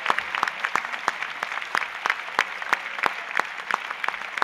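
Audience applause: many people clapping at a steady level throughout.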